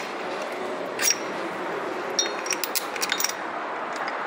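Metal parts of a stripped diesel engine clinking as the main bearing caps and bolts around the crankshaft are handled: one sharp clink about a second in, then a quick run of ringing clinks about two seconds in.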